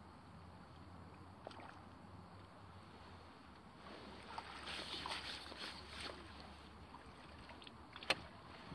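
Landing net lifted out of the river, water splashing and dripping from it for about two seconds, starting about four seconds in. A single sharp click near the end.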